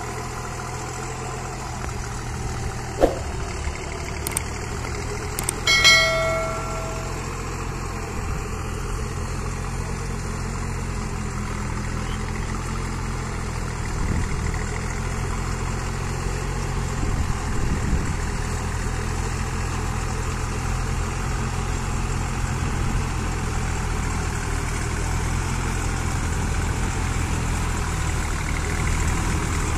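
Same Deutz-Fahr 50 hp tractor's diesel engine running steadily while it works a rotavator through wet paddy mud. A sharp knock comes about three seconds in, and a short ringing, bell-like tone about six seconds in.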